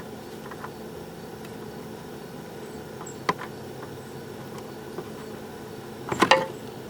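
Old oil filter being unscrewed by hand from a four-cylinder Toyota Camry engine, giving a few light clicks and then a quick clatter of knocks about six seconds in, over a steady low hum.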